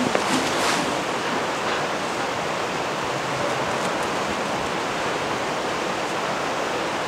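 Steady, even hiss of background noise, with a few soft knocks in the first second.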